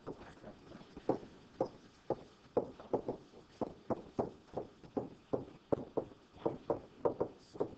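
Stylus tapping and clicking against a touchscreen while words are handwritten, about twenty short taps in quick, uneven succession.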